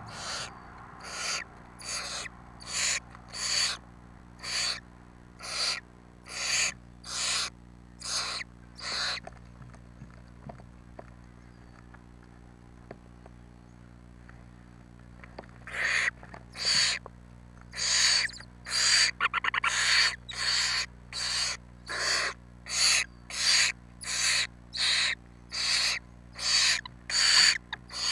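Barn owl chicks giving hissing, rasping food-begging calls: a rapid series of short hisses, roughly two a second, that stops for about six seconds midway and then resumes.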